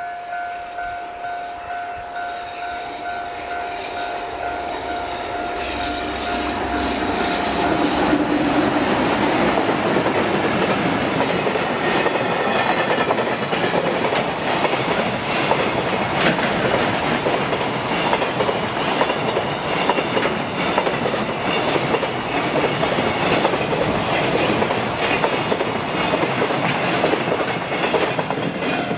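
Japanese level-crossing alarm bell dinging about twice a second, soon drowned as an EH500 electric locomotive and a long train of container flatcars pass at speed. The wheels clatter over the rail joints in a loud, steady rush.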